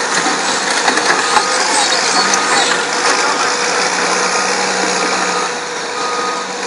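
Heavy diesel earthmoving machines, a crawler dozer and an excavator, running steadily. A back-up alarm beeps faintly at intervals of about a second.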